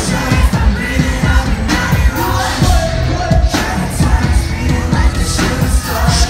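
Live concert music recorded from the audience: a band plays loud with a heavy bass beat and amplified singing, with crowd yelling mixed in.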